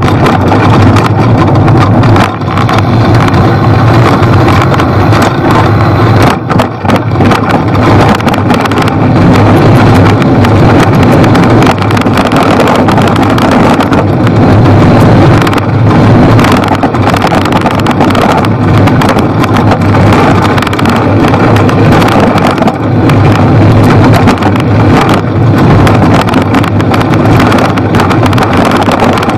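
Wind buffeting the microphone of a bicycle-mounted camera, together with bicycle tyres rumbling over a leaf-covered dirt trail on a downhill run. The rumble is loud and steady, with frequent short knocks from bumps in the trail.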